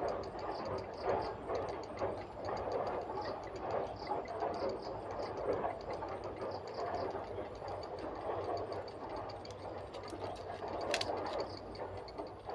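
Grey heron nestlings begging: a continuous, rapid ticking chatter, with a sharp click about eleven seconds in.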